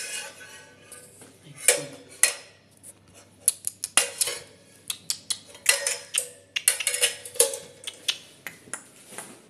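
A run of sharp knocks and clatters of hard objects being handled, several with a short ringing tone, irregular and fairly loud throughout.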